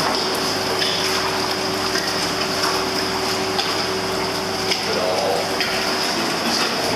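Water churning and splashing steadily as a Doberman paddles through a pool, over a steady machine hum.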